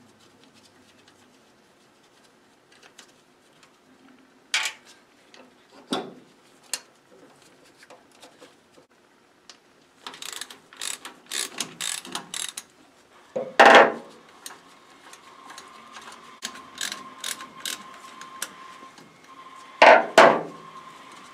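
Hand tools working on a Ford Model A starter's mounting: a ratchet wrench clicking in quick runs, with metal clanks and knocks as tools and parts strike, loudest twice near the middle and end. A faint steady tone comes in about two-thirds through.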